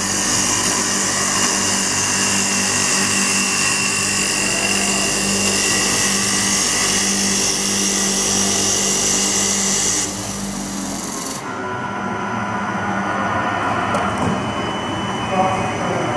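CNC wood lathe turning a wooden workpiece: a steady whine from the machine with a loud hiss from the cutter on the wood. About ten seconds in the cutting hiss cuts off, leaving the lathe running more quietly, with a light knock near the end.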